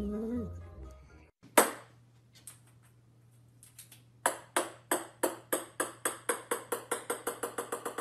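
A table-tennis ball bouncing on a hard wooden floor. There is one loud bounce, then a few light taps, and from about four seconds in a steady run of bounces that come ever faster and slightly quieter as the ball settles.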